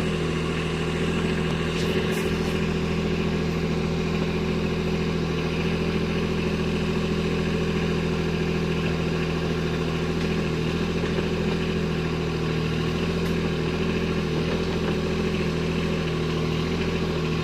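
Kubota B2601 compact tractor's three-cylinder diesel engine running at a steady speed while it works the backhoe, with a faint click about two seconds in.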